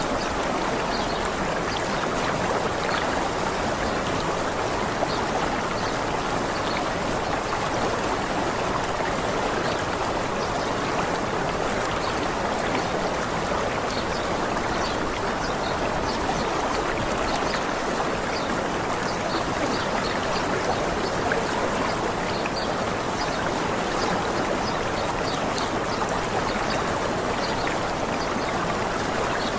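Water of a waterfall rushing steadily: an even, unbroken splashing hiss.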